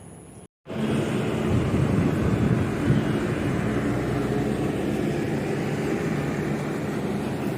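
Lorry's diesel engine running steadily with road noise while driving, coming in abruptly about half a second in.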